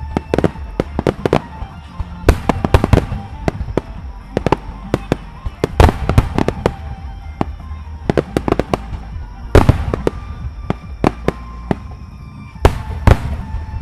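Fireworks going off in a rapid, irregular string of sharp bangs and crackles. A few louder booms come about six seconds in, near ten seconds and near the end.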